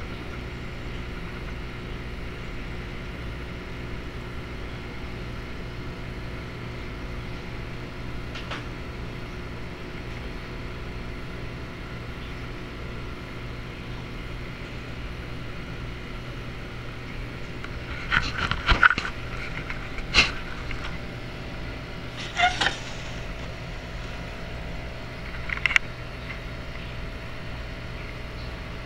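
Steady low hum of aquarium equipment with a faint hiss. In the second half come a handful of short clicks and knocks, the loudest a quick cluster a little past the middle.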